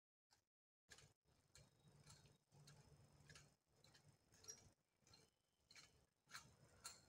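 Near silence: faint, irregular clicks and ticks over quiet forest ambience.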